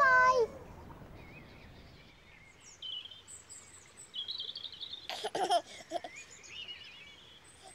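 Small birds chirping and tweeting in quick high notes, with a baby giggling briefly about five seconds in.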